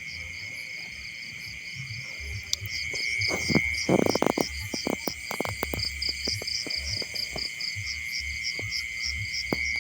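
Insects chirping steadily: a constant high buzz with a fast pulsing chirp above it. From about three seconds in, a run of close rustles and snaps, loudest around four seconds in.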